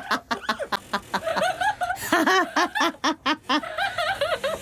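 A parrot laughing in a strikingly human way: runs of short, quick chuckling syllables.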